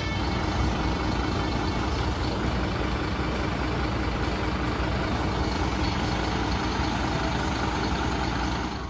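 Emergency vehicle's engine idling, a steady rumble and hiss that does not change.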